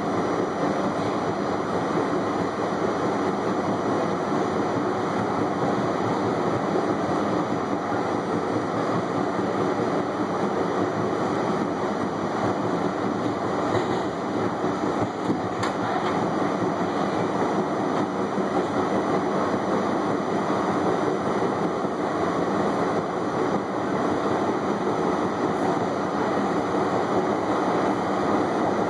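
R68A subway car running at speed, heard from the front cab window: a steady rumble of steel wheels on the rails and the DC traction motors, with a couple of brief clicks about halfway through.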